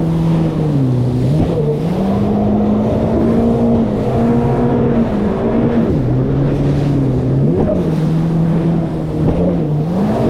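Yamaha WaveRunner jet ski's engine running under way, its pitch stepping down and back up several times as the throttle changes, over wind and water rush.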